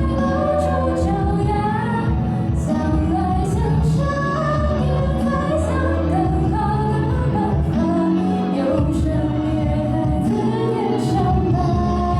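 A song with a female singing voice over a band accompaniment with a steady beat.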